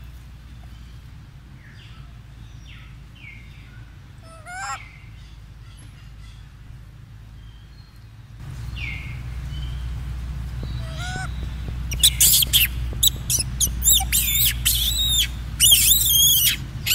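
Macaque calls: a few short squeaky calls in the first half, then from about twelve seconds in a run of loud, shrill screams one after another.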